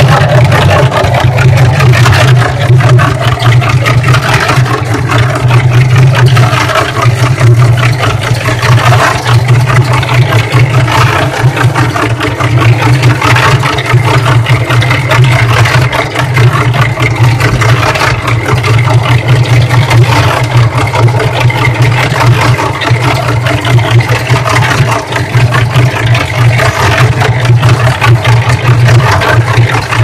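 Cement mixer running steadily as a makeshift washing machine, its drum turning with a constant low hum. Water and clothes slosh and churn inside the drum.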